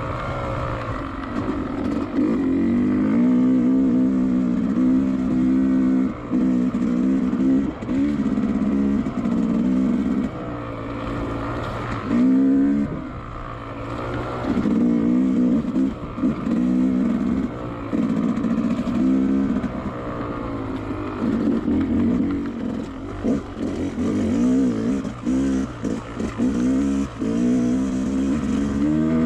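Two-stroke dirt bike engine revving up and down as it is ridden, its pitch rising and falling over and over, with short drops where the throttle is closed.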